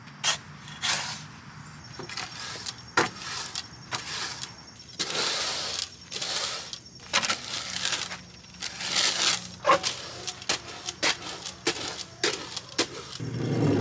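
Metal fan rake's thin steel tines scraping across dirt and straw in repeated strokes. Sharp metallic ticks and clicks fall between longer scraping sweeps.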